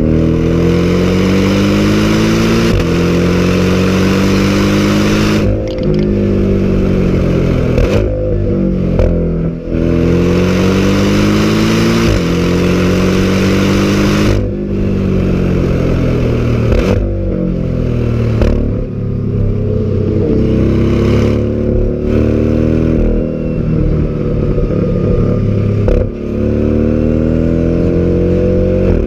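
Porsche sports car engine and exhaust under hard acceleration. The pitch climbs through each gear and drops sharply at each quick upshift, over and over, with short lifts off the throttle in between.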